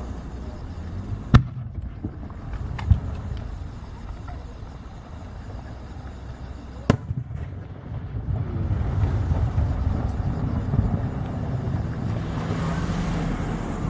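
Fireworks shells bursting at a display: a sharp bang about a second and a half in, a smaller one near three seconds and another sharp bang near seven seconds, then a steady low rumble with faint crackling.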